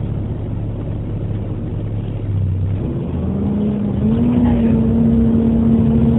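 Volvo B7TL double-decker bus's diesel engine running with a steady low note, then about three seconds in its pitch rises in two steps and holds at a higher, steady note as the revs build.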